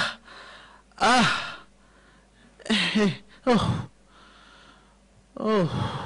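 A man's loud, hysterical laughter: five drawn-out 'haa' bursts, each falling in pitch, spaced a second or two apart.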